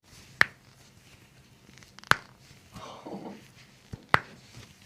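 Three sharp, loud cracks about two seconds apart, the popping of spinal joints during chiropractic back adjustments, with a soft shorter sound between the second and third.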